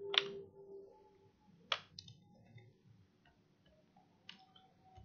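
Computer mouse clicking: a few sharp single clicks spaced a second or more apart, the loudest just after the start, another under two seconds in, and one a little after four seconds.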